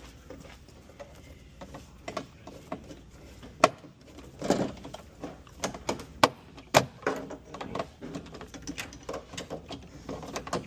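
Handling noise of parts and hardware: scattered sharp clicks and knocks, three of them louder, with rustling in between.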